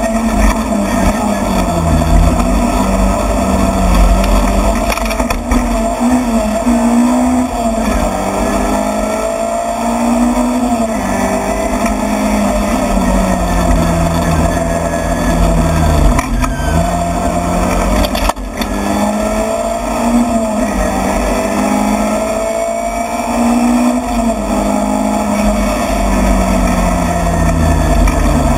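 Rally car engine at racing speed, heard from inside the cabin, its pitch rising and falling over and over as the driver works the throttle and gears. There are a couple of sharp knocks about five and eighteen seconds in, and near the end the note settles lower and falls away.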